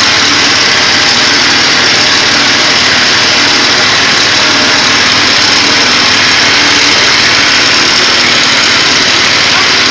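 Motor-driven coconut-milk press machine running steadily, with a loud, even mechanical noise.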